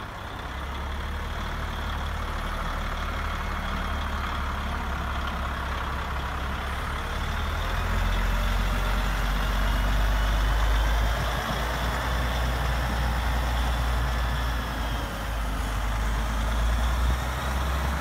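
Radio-controlled model truck driving: a steady low truck-engine drone with a faint whine gliding up and down above it, the drone growing louder about halfway through.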